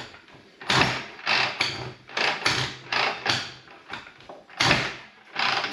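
1962 Harley-Davidson Panhead being kicked over: a run of sharp mechanical clatters from the kick-start gear, with no firing from the engine. The clutch is slipping, so the kicks don't turn the engine over properly.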